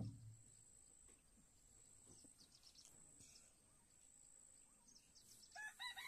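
Quiet outdoor background with a steady high-pitched whine and a few faint chirps. There is a dull thump right at the start, and a loud crowing call begins near the end.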